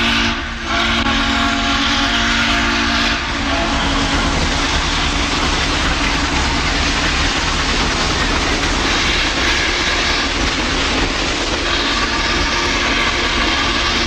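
A steam locomotive's whistle blows a long blast of several tones, with a short break just after it starts, and cuts off about three seconds in. After that comes the steady running noise of Chesapeake & Ohio 2716 steam locomotive working past with its passenger train.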